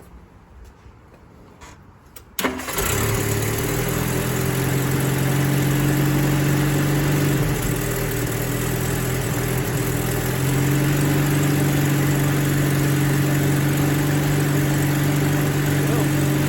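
Rover P4 80's four-cylinder petrol engine starting about two seconds in and settling into a steady idle, running on freshly replaced ignition cables.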